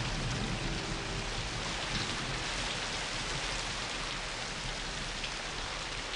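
Steady rain falling, an even hiss of drops with no rhythm or break.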